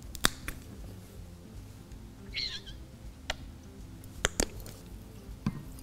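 Light clicks and taps of plastic acrylic paint bottles being handled and set down, with a short squeak about halfway through as paint is squeezed out onto a foil palette.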